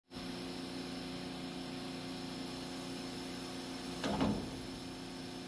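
Steady machinery hum made of several fixed tones, with a brief louder sound about four seconds in.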